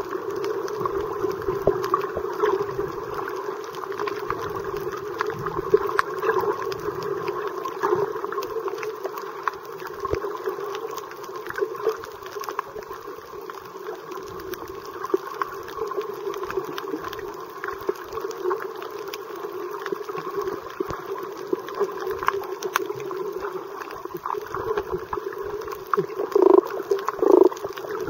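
Underwater sound picked up by a submerged camera: a steady muffled hum with scattered faint clicks and crackles, and a few gurgling bubble sounds near the end.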